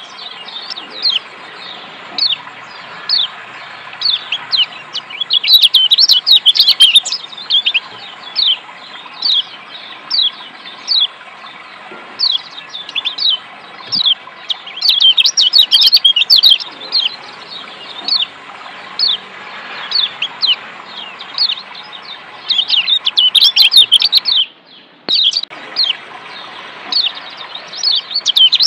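Kecial kuning (Lombok white-eye) repeating short, high chirps that slide downward, about one a second, with quicker runs of several chirps now and then, over a steady rush of running water that cuts out for about a second near the end. It is a therapy track of 'ciak' calls and water sound, played to get caged white-eyes singing.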